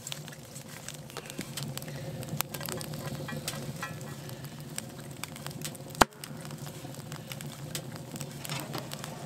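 Wood fire crackling in a tent stove: scattered sharp ticks and pops over a low steady hum, with one louder snap about six seconds in.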